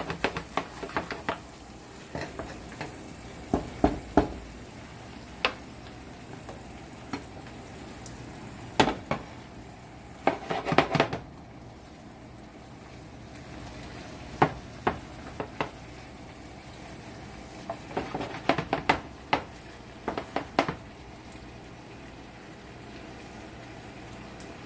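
Seafood sizzling in a skillet while a spoon knocks and scrapes against the pan in short clusters as it is stirred; the knocking stops in the last few seconds, leaving only the steady sizzle.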